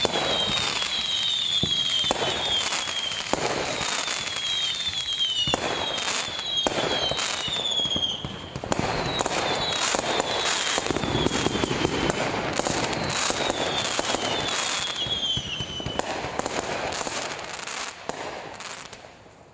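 Fireworks going off: a dense run of bangs and crackles with clusters of short, falling whistles, fading away near the end.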